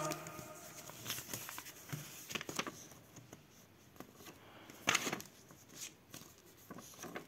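Paper pages of a LEGO instruction booklet being handled and flipped, a few short rustles and flicks, the loudest about five seconds in.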